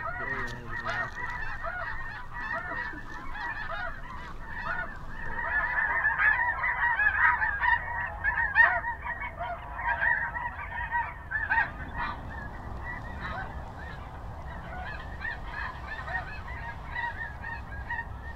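A large flock of snow geese calling in flight: many short, high, overlapping honks, busiest in the middle and thinning out toward the end.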